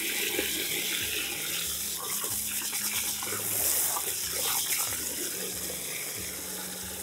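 Water running from a garden hose nozzle into a plastic bucket, filling it to cover chicken feed for fermenting. The steady hiss of the running water fades slightly toward the end.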